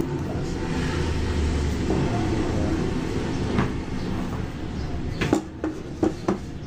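A steady low background rumble, with a few sharp clicks and knocks in the second half as pliers and other hand tools are handled.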